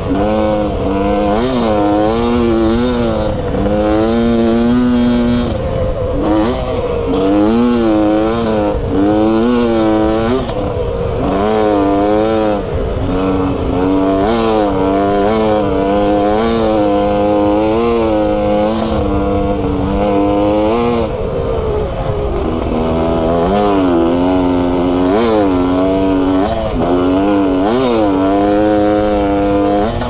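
Beta 300RR two-stroke single-cylinder enduro bike engine being ridden hard, its revs rising and falling over and over as the throttle is worked.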